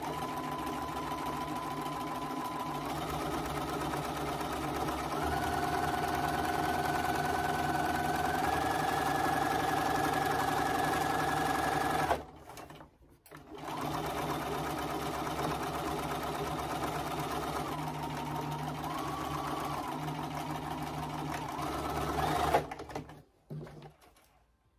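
Bernina sewing machine stitching in two long runs, its motor whine stepping up in pitch as the speed rises, with a short stop about twelve seconds in. The top-stitching ends with a sharp click near the end.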